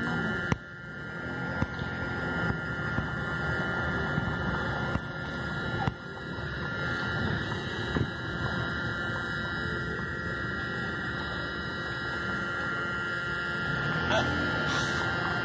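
Steady engine and road noise heard inside a car moving slowly, with a faint steady hum over it.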